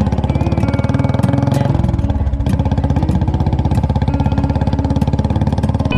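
Royal Enfield Classic single-cylinder motorcycles running as a group rides past, a steady fast train of engine pulses whose pitch shifts a couple of times.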